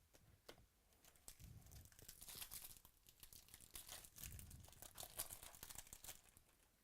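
Faint crinkling and tearing of a trading card pack wrapper being opened, with a dense run of small crackles and clicks.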